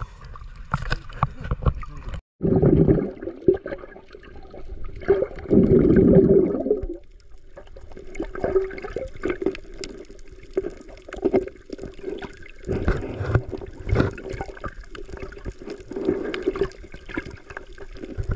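Water gurgling and splashing, with scattered knocks and clicks and a faint steady hum underneath. Two loud splashy surges come in the first half, and the sound cuts out for a moment about two seconds in.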